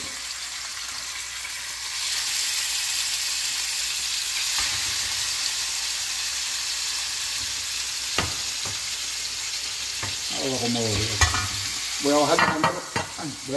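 Thick mahi-mahi fillets sizzling in hot olive oil in a frying pan, on a flame the cook judges too high. The sizzle grows louder about two seconds in, with a few light knocks from the pan.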